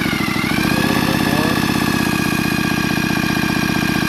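Power tool on the flywheel nut spinning the crankshaft of a Stihl TS 420 two-stroke with the spark plug out: a steady motor whine over a fast, even pulsing as the engine turns over. The whine rises slightly about half a second in, then holds. This is a motored break-in of the new crank bearings, seals, piston and rings, which the owner judges to be running smoothly.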